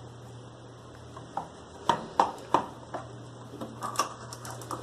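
Cardboard hair-dye box being opened and its contents handled: quiet at first, then several sharp taps and clicks about two seconds in, with softer rustling towards the end.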